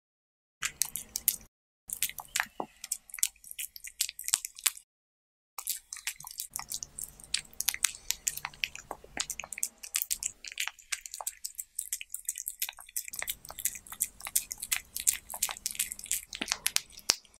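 Cat eating diced cucumber and tomato off a tortilla, close-miked: rapid wet, crunchy chewing and smacking clicks. The sound cuts out completely for moments twice in the first five seconds.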